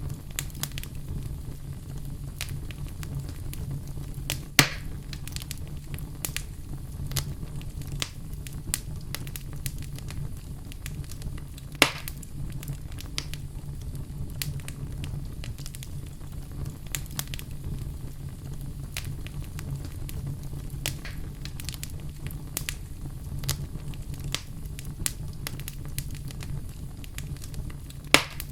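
Wood fire in a fireplace crackling, with a steady low rumble underneath and a continual scatter of small snaps. Three louder pops stand out: about four and a half seconds in, near the middle, and at the very end.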